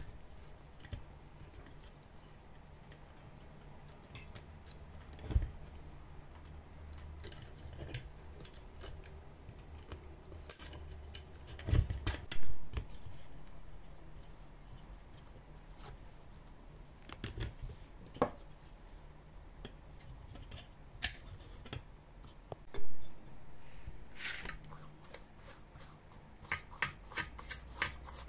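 Hand work with tools and small parts: scattered sharp clicks and light knocks, a few louder thumps, and a quick run of clicks near the end, over a low steady hum.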